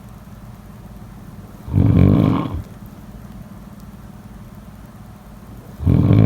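A person snoring: two loud snores just under a second long, about four seconds apart, the second near the end, with a steady low hum between them.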